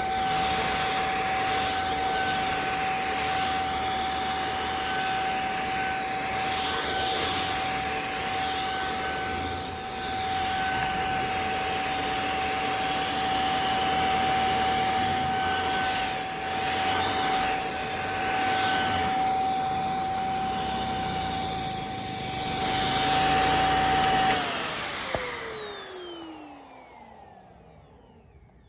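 JPHYLL UV mattress vacuum running: a steady high whine over the rush of suction, swelling and easing in level. About 24 seconds in it is switched off and the whine falls away in a long downward glide as the motor spins down, with a single click about a second later.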